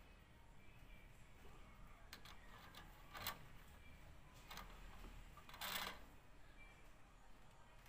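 A thin plastic polarizer film being handled over an LCD panel: faint rustling with a few light ticks and two short crackles, one about three seconds in and a longer one just before six seconds.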